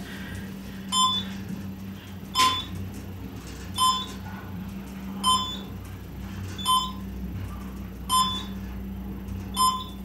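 Schindler elevator car descending, giving a short electronic beep as it passes each floor, seven beeps about a second and a half apart, over a low steady hum of the moving car.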